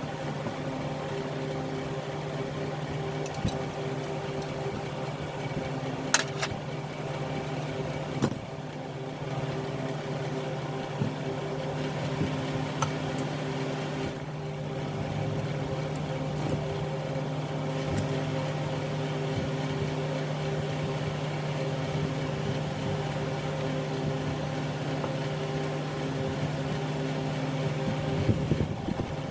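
Steady machine hum with a few sharp clicks or knocks, the loudest about 6 and 8 seconds in.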